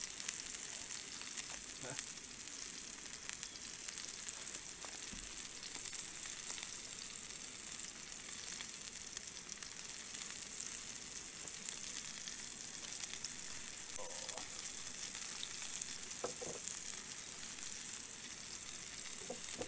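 Burger patties sizzling steadily in oil in a frying pan over a small gas camping stove.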